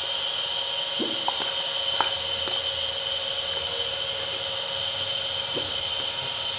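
A steady high-pitched whine over a low hum. A few light clicks of dishes and a spoon fall about a second and two seconds in.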